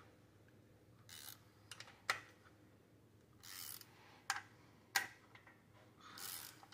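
Ratchet wrench loosening the connecting-rod cap nuts on a Honda D16A6 engine: three short rasping runs of the ratchet clicking over, with a few sharp metallic clicks between them, all faint.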